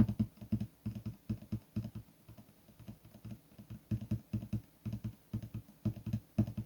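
Quick, irregular light taps and clicks, several a second, that thin out for a second or so in the middle.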